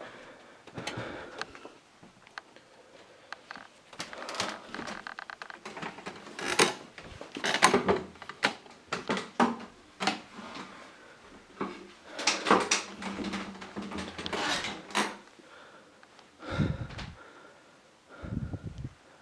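Irregular knocks, clicks and rustling in a small room, the handling noise of a handheld camera being carried and moved about. The clatter is busiest in the middle and thins out near the end.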